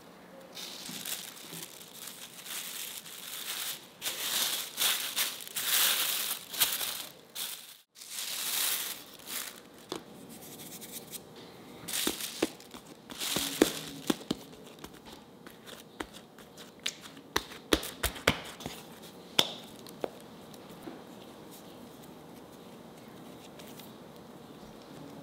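Plastic film crinkling and rustling as it is spread over balls of bread dough to rest, loudest a few seconds in. After a short break come softer rustles and a series of sharp taps as dough is pressed flat and shaped by hand on a wooden board.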